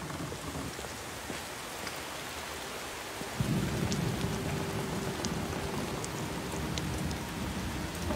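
Steady rain falling, with a low rumble of thunder that swells about three and a half seconds in and holds, under a faint held low tone.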